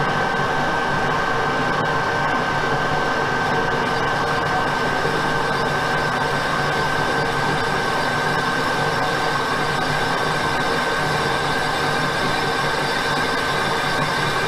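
Metal lathe turning an alloy wheel while a carbide-tipped boring bar cuts its center hole: a steady machining noise with a constant high whine running through it.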